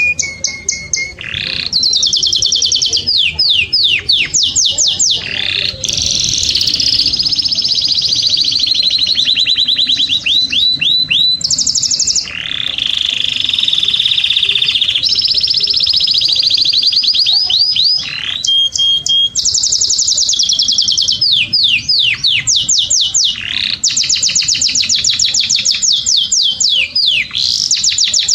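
Domestic canary singing a continuous, loud song of rapid trills and rolls, with fast runs of repeated sweeping notes and steadier buzzing phrases that change every few seconds.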